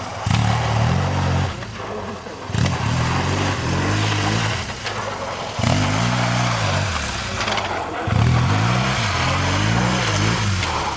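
BMW R 1200 GS boxer-twin engine revving up and down while the bike spins its rear wheel in loose dirt, in several spells that break off abruptly.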